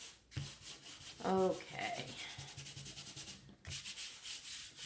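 Fingers rubbing powdered graphite into drawing paper in rapid back-and-forth strokes, with a brief break just before the end. About a second in there is a short vocal sound.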